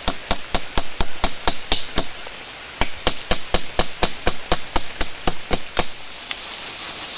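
A nail being hammered into wood with quick, even strokes, about four a second, in two runs with a short pause between, over the steady hiss of rain.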